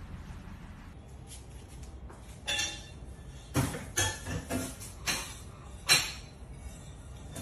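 Wire playpen panel clinking and rattling in a run of about seven sharp metallic hits as a golden retriever puppy paws and presses against it, starting a couple of seconds in; the last hit is the loudest.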